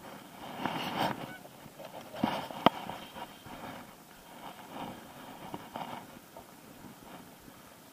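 Geese honking in several separate bursts of calls. A single sharp click cuts in a little under three seconds in.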